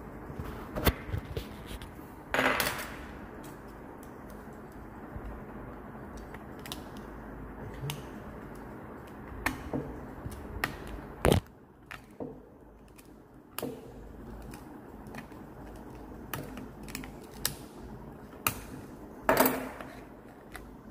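Small clicks and scrapes of a screwdriver tip picking at the glued edge of a Wharfedale Diamond 9.1 woofer cone while the old rubber surround is peeled away. Sharp clicks are scattered throughout, the loudest about eleven seconds in, with two longer scrapes about two and a half seconds in and near the end.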